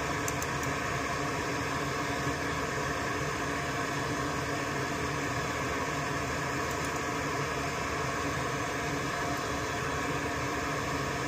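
Steady whirring hiss of a small electric fan or blower running, with a few faint ticks about half a second in.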